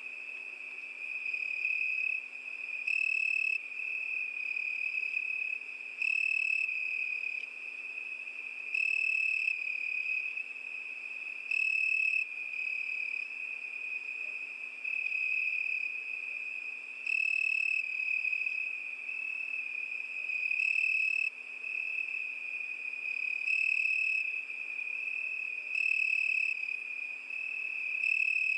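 Crickets chirping: a steady high trill, with a louder chirp standing out about every three seconds.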